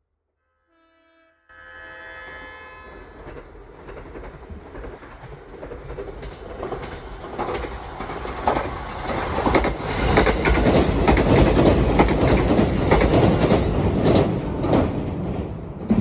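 An electric train sounds a short horn, then approaches and passes close by. Its rumble and the clatter of wheels over rail joints swell steadily and are loudest over the last few seconds.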